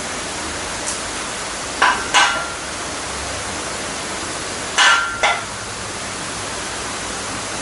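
Two pairs of sharp metallic clinks, about three seconds apart, each with a brief ring, as metal tools or parts knock together over a steady hiss of background noise.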